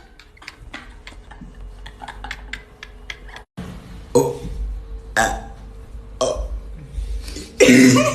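A person's loud burp near the end, after a few seconds of faint clicks and small knocks.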